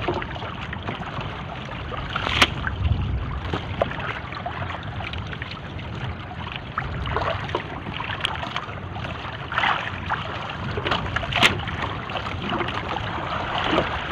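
Water rushing and splashing along the hull of a moving small boat, with a low rumble underneath and a couple of sharp slaps, about two and a half seconds in and again near eleven and a half seconds.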